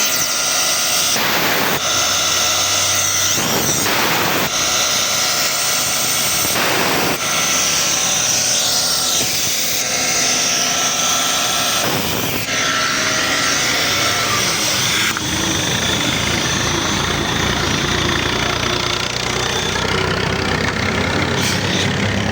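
Loud, steady running noise of machinery with a constant hum and hiss, shifting abruptly in character several times.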